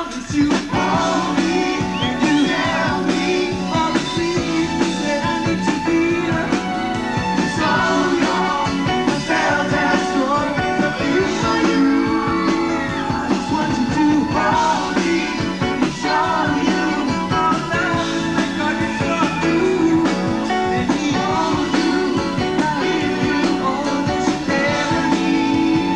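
Live rock music: a male lead singer singing over a full band.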